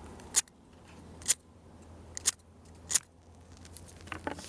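Flint wheel of a Zippo SureFire multi-tool spun against its flint to throw sparks: four short, sharp rasping strikes about a second apart.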